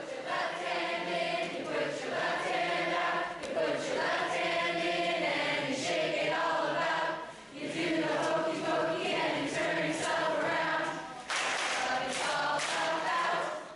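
A mixed group of adults and children singing together, unaccompanied.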